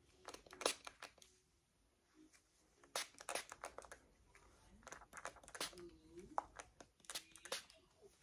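A hairbrush being worked through a toddler's thick, tightly curled hair to detangle it: clusters of short crackling strokes, about half a second in, around three seconds in and again around seven seconds in.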